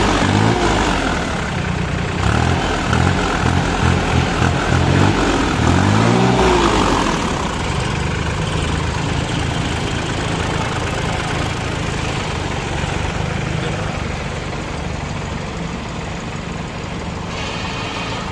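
Solis 2516 compact tractor's diesel engine revved in several blips, its pitch rising and falling, over the first seven seconds or so, then settling back to a steady idle.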